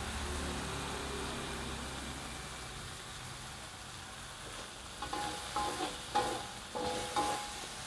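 Ground garlic, shallot and chilli paste sizzling in a wok over a low flame. From about five seconds in, a metal spatula scrapes the paste around the wok in about five strokes, roughly two a second, each with a brief metallic ring.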